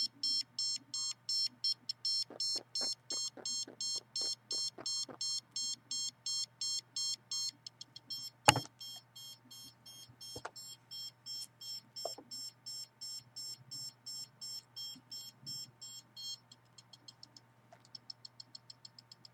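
Handheld RF signal detector beeping rapidly, about five high-pitched beeps a second, as it picks up signals from a computer. The beeps grow quieter after a sharp knock about eight seconds in, and turn into fainter, higher chirps near the end, over a steady low hum.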